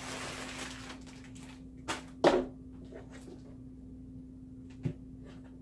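Plastic packing material crinkling as it is handled, then a few knocks from a cardboard box being picked up and moved about, the loudest about two seconds in.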